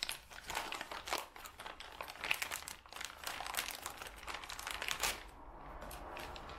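Plastic packaging bag crinkling and rustling as it is opened and unwrapped by hand, in a quick run of crackles that dies down about five seconds in.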